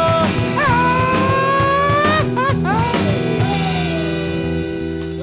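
Live rock band with electric guitar and drums, a male voice holding long sung notes that slide up and then fall away. A chord is held ringing through the second half as the song closes.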